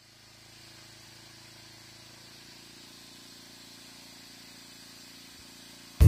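Homemade band sawmill running, a faint steady hum of its drive motor with a hiss over it, fading in over the first second.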